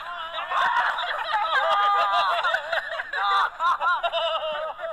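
Several men laughing and calling out, with short repeated bursts of laughter near the end.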